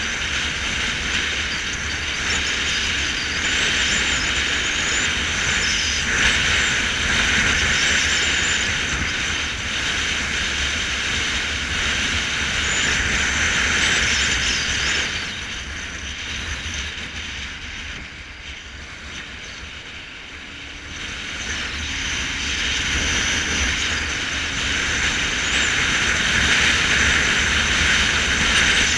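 Motorcycle riding along a paved road: a steady rush of wind and engine noise over a low rumble, which drops back for a few seconds about halfway through and then builds again.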